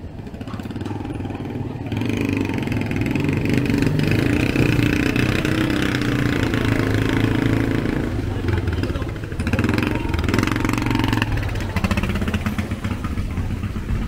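Motorcycle engine running close by in street traffic, growing louder about two seconds in and staying loud until it shifts and eases near the end.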